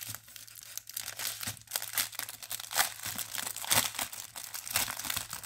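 Packaging crinkling and rustling as it is handled and opened, an irregular run of crackles with several louder rustles.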